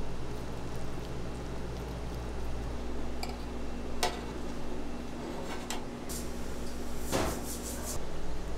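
Kitchen clatter: a few sharp clinks and knocks of dishes and utensils over a steady low hum of kitchen equipment.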